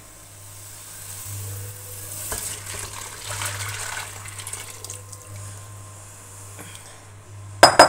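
Strained bone broth poured from a bowl back into a steel pot, splashing for a few seconds. Near the end, a single loud, sharp clank.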